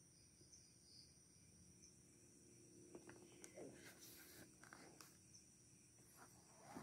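Near silence with a faint steady high-pitched tone; from about three seconds in, soft rustles and taps of a cardboard box being handled and turned in gloved hands.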